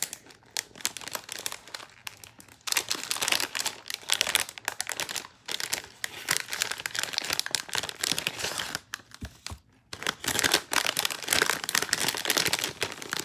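Paper packaging crinkling and rustling as hands work a mailed package open, in uneven bursts with a brief lull about nine seconds in.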